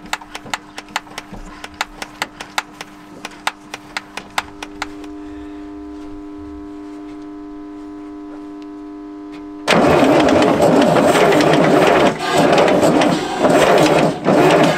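The Kirovets K-700A's V8 turbo diesel cranks and tries to start after six years standing. It comes in suddenly and loud about ten seconds in and runs unevenly, dropping off briefly a few times. Before that there is a quick run of clicks, about three a second, over a steady hum, which stops around five seconds in.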